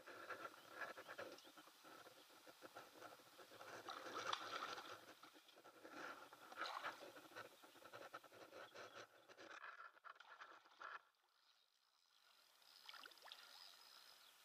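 Faint splashing and lapping of water around an inflatable boat's pontoons, with many small crackling ticks.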